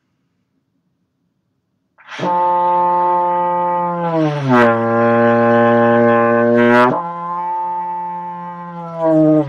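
Trombone playing long low notes, starting about two seconds in. The pitch glides down into a lower note instead of changing cleanly, then goes back up about seven seconds in and starts another note near the end. The glide between the notes is a beginner's fault.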